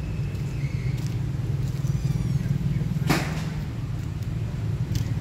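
Steady low rumble of a running engine, with a short sharp clatter about three seconds in.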